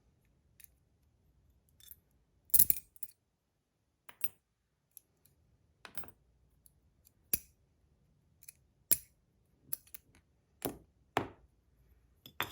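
Small metal parts of a bronze Rapt fidget slider (screws, plates, inserts, magnets) clicking and clinking as they are taken apart and set down. The clicks come one at a time, about a dozen, the loudest cluster about two and a half seconds in.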